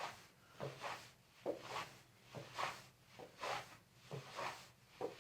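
A person marching in place: soft, evenly paced footfalls on the floor, a little faster than one a second.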